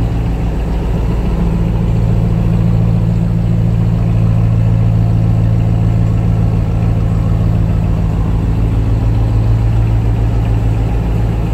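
2021 Ram 1500 TRX's 6.2-litre supercharged Hemi V8 idling with a steady low rumble, heard close behind the truck at its dual exhaust tips.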